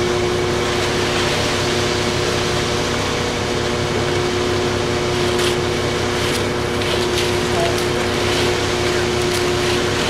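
Ready-mix concrete truck's diesel engine running steadily, turning the drum as concrete is discharged down its chute. A few faint scrapes of tools in the wet concrete come near the middle and end.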